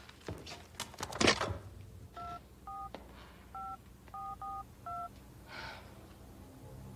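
Touch-tone telephone being dialled: six short two-tone key beeps over about three seconds, after a few clicks and a brief rustle near the start.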